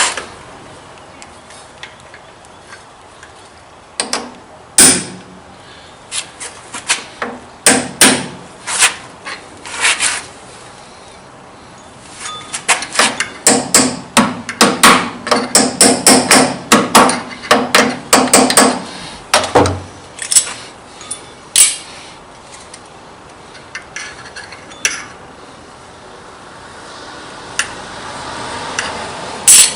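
Hammer striking metal, marking hole positions for mounting a DRO scale on a lathe. Scattered single taps come first, then a quick run of many sharp taps lasting several seconds in the middle, then a few more.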